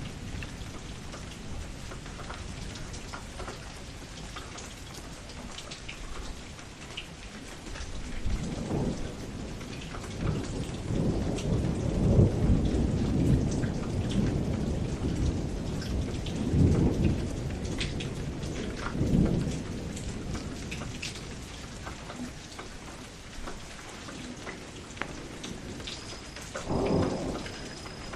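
Steady rain falling, with distinct drops ticking through it, and thunder rolling. A long low rumble builds about eight seconds in and rolls on to around twenty seconds, and a shorter rumble comes near the end.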